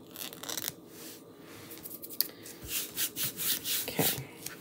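Fingers handling a Chalk Couture adhesive mesh transfer: soft crinkling as its edge is lifted, then a run of quick rubbing strokes, about three a second, as it is smoothed down flat against the surface in the second half.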